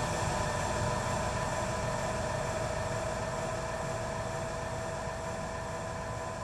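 Steady electronic drone: several held tones over a hiss of noise, slowly fading out.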